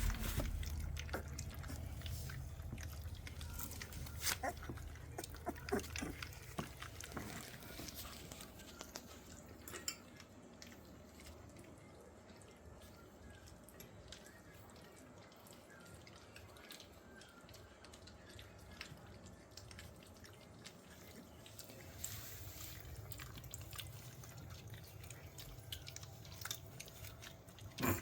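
Golden retriever puppies lapping and smacking at a soupy blended mash: a scatter of small wet clicks and slurps, busier in the first ten seconds and again near the end.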